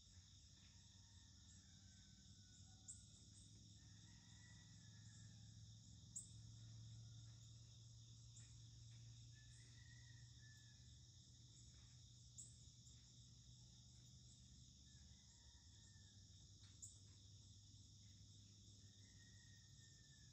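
Faint, steady outdoor insect chorus, a high continuous shrilling, with a low hum underneath. A few short high chirps and soft calls come now and then.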